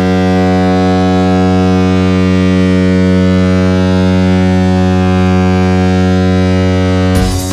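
Hockey arena goal horn: one long, steady, low blast lasting about seven seconds. It breaks off near the end as the goal song's music starts.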